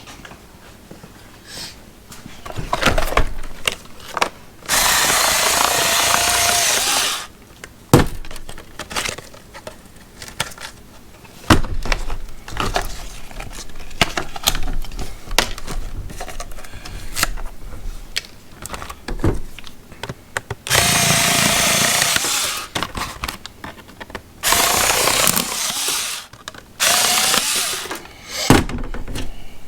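Plastic packaging being cut open with a cutter: several bursts of steady cutting noise, each a couple of seconds long, between clicks and knocks as the package is handled.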